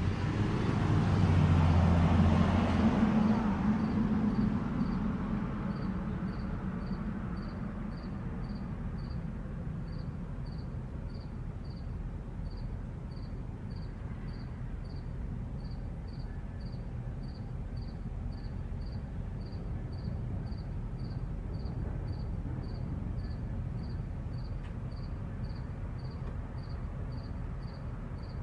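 A car passes close by, loudest about two seconds in and fading away by about five seconds. Then a cricket chirps steadily, about three chirps a second, over a low hum of distant traffic.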